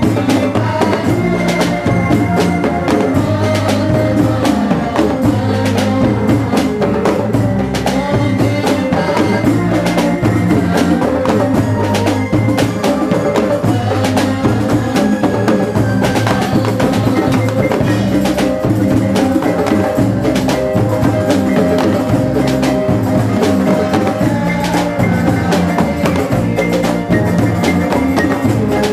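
Live Indonesian Islamic devotional music: a rebana ensemble of hand-beaten frame drums keeping a steady rhythm over electronic keyboard and guitar, with male voices singing into microphones.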